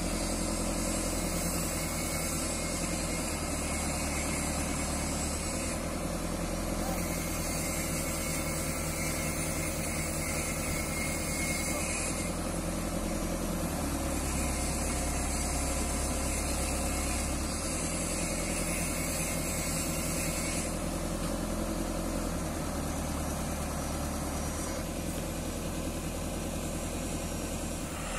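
Heavy work vehicle's engine idling steadily.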